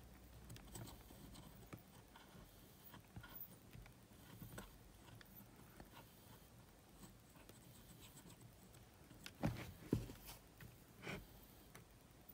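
Faint scraping and small ticks of steel tweezers working the rubber drive belt off the flywheel of a Sony WM-GX822 cassette Walkman, with a few louder clicks about three quarters of the way through.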